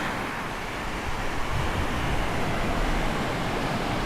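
Ocean surf washing onto a beach, a steady rush of noise with wind buffeting the microphone. It swells slightly after about a second.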